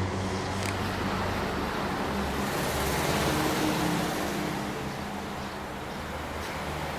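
Steady running of a vehicle engine: a low, even hum over broad background noise.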